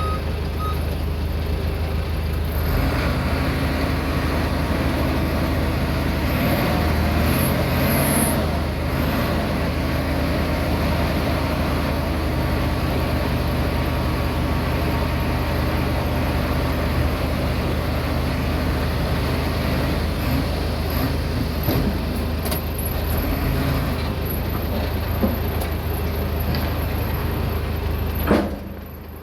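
Komatsu D20P bulldozer's diesel engine running steadily while it works, its pitch shifting a little with load. The sound drops away briefly near the end.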